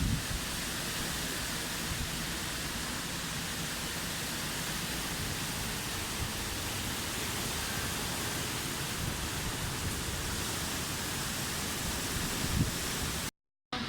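Torrential rain pouring down in a steady, even hiss during a severe thunderstorm. The sound cuts out briefly shortly before the end.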